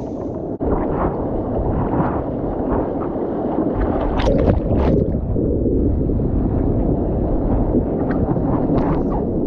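Sea water rushing and splashing around an inflatable stand-up paddleboard as it rides a wave, over a steady rumble of wind on the microphone. A few sharp splashes come about four seconds in and again near the end.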